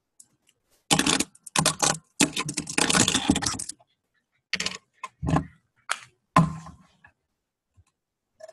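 Typing on a computer keyboard: a quick run of keystrokes about a second in, then four separate key clicks about half a second apart.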